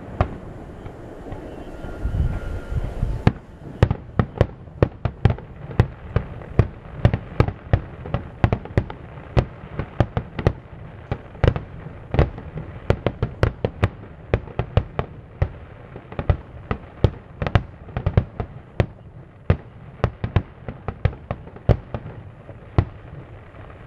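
Fireworks display: aerial shells bursting in a rapid barrage, about three sharp bangs a second, starting a few seconds in and stopping just before the end.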